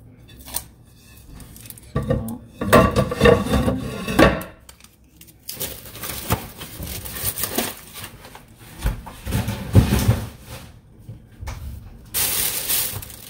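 Earthenware clay dishes being handled and knocking against each other, with the rustle of their paper wrapping. The handling comes in bouts, and the loudest rustling is near the end.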